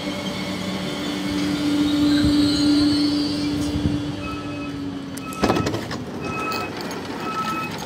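Omneo Premium double-deck train standing at the platform with a steady electrical hum. About four seconds in, the passenger door's warning beep starts repeating about once a second, and a loud clunk with a rush of noise follows about a second later as the sliding door opens.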